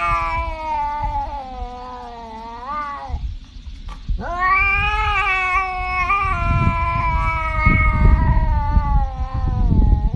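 Tabby cat yowling in two long, drawn-out calls: the first sags in pitch and then rises before breaking off about three seconds in, and after a short pause a second long call holds steady until near the end.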